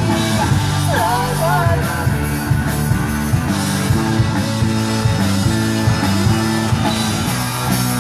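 Live rock band playing through a PA during a sound check: electric guitar, bass and drums, with a short sung line about a second in.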